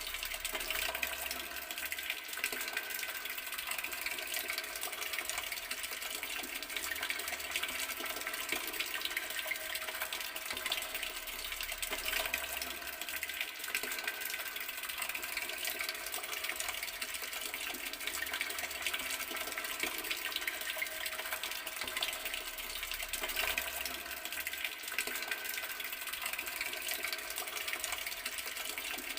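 Water running steadily from an outdoor garden tap, splashing with a constant hiss.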